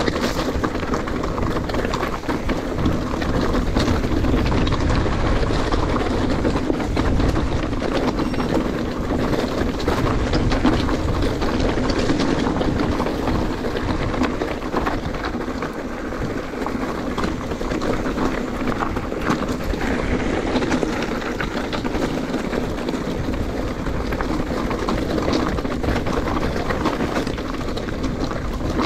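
Mountain bike rolling over a rough trail: steady tyre noise and rattle, thick with small clicks and knocks.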